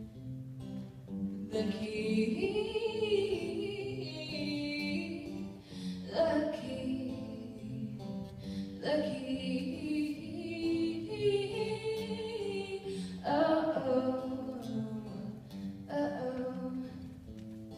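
A young woman singing a slow song in long held phrases, accompanied by her own acoustic guitar.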